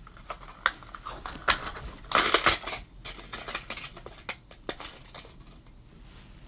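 A plastic fishing-lure package being opened by hand: crackling and crinkling plastic with scattered sharp clicks and snaps. The loudest, densest crackle comes about two seconds in.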